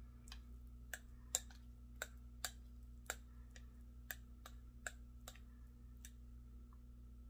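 A metal spoon clinking against a clear glass bowl as it stirs and scoops thick grits: about a dozen sharp clicks, roughly two a second, ending about six seconds in, over a faint steady low hum.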